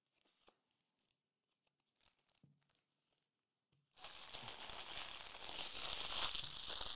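A few faint clicks, then about four seconds in a trading-card pack's foil wrapper crinkling and tearing steadily as the pack is opened.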